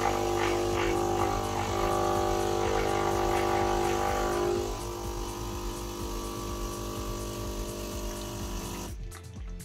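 Philips EP2200 espresso machine running, its water pump humming steadily as it pushes water through the spout into a glass. It is louder for the first half, drops to a quieter hum about five seconds in, and stops near the end. The machine now runs through its cycle instead of halting on the red-triangle drive fault.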